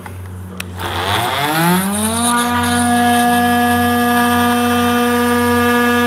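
Milwaukee M18 cordless oscillating multi-tool with a cold knife blade starting up about a second in, its whine rising in pitch, then running at a steady high pitch as the blade cuts through the urethane bonding that holds a panoramic roof glass.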